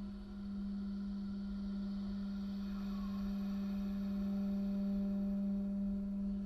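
Steady electronic drone: one low held tone, close to a pure sine, with faint higher tones above it, from a live looping and sound-processing setup. A brief click comes at the very end.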